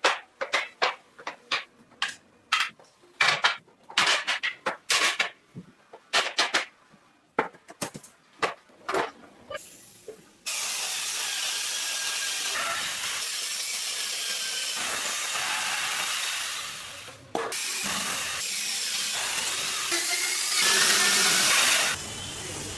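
Woodworking: a run of sharp, irregular knocks of hand-tool work on wood, then a power tool running steadily with a hissing whine. It breaks off briefly about two-thirds through and runs louder near the end.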